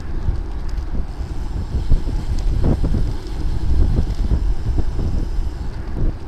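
Wind buffeting the microphone of a bike-mounted camera riding at speed: a loud, gusty low rumble with a few brief knocks.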